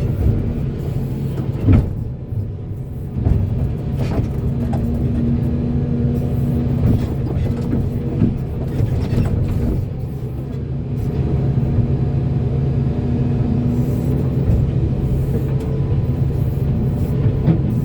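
Volvo excavator's diesel engine running steadily under load while it works, with a few sharp knocks in the first few seconds.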